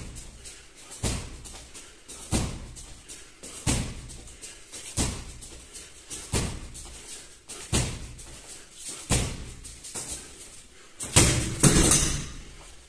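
Sharp thuds in time with a boxer's explosive shadow punches, coming very evenly about once every 1.3 seconds, with softer knocks in between. A louder burst of several thuds comes near the end.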